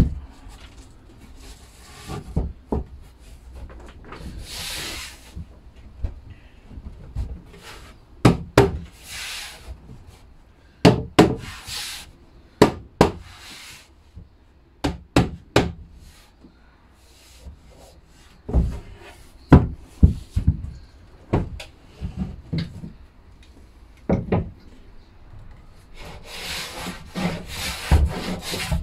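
Pine boards knocked and slid against each other as they are fitted, with scattered wooden thumps and a few short scrapes. Near the end a hand plane starts shaving the pine edge in a run of rasping strokes.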